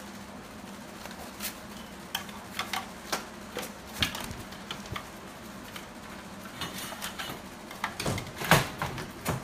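Irregular light clicks and knocks on a hard surface, with a cluster of louder knocks about eight seconds in.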